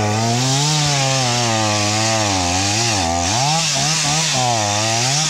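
Chainsaw running while cutting wood, its engine pitch rising and falling over and over.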